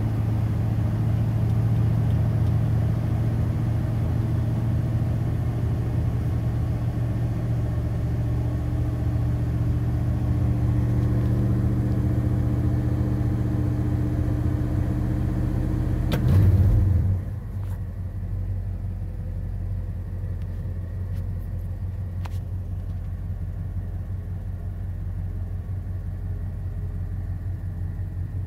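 1984 Ford F150 4x4's engine idling after a cold start, heard from inside the cab. About two-thirds of the way through there is a brief louder surge, then it settles to a quieter, lower idle that runs steadily.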